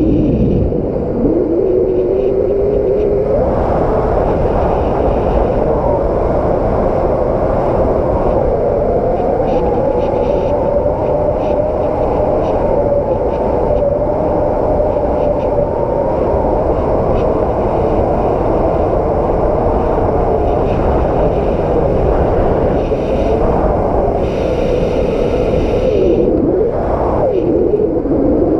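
Strong wind blowing hard and buffeting the microphone with a constant low rumble, over a wavering howl that slowly rises and falls in pitch.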